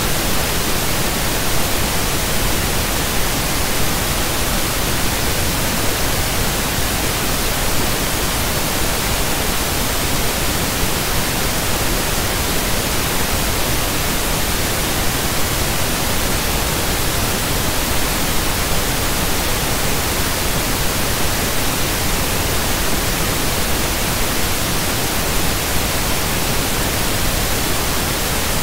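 Steady, loud static hiss spread evenly from low to high pitch, unchanging and with no speech: noise on the recording's audio track.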